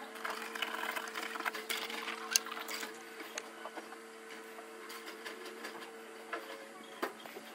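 A black drawing stick scratching and tapping across a thick, dried, textured paint surface, with dense small scratches for the first few seconds and scattered clicks after. A steady low hum runs underneath.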